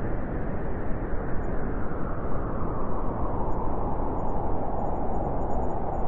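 Steady rushing noise on the deck of a moving ship, wind and water together, heaviest in the low end.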